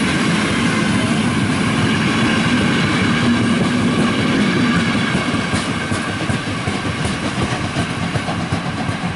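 Passenger coaches rolling past close by as a train pulls out, the wheels clattering rapidly over the rail joints in a loud, continuous rumble. The sound eases slightly near the end as the last coach draws away.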